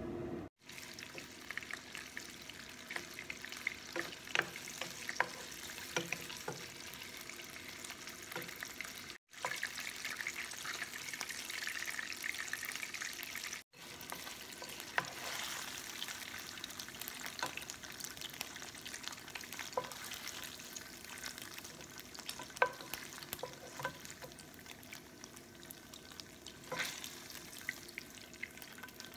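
Small pieces of meat sizzling and crackling in hot oil in a nonstick pan, stirred with a wooden spatula, with frequent sharp pops of spitting oil. The sound breaks off twice, briefly and suddenly.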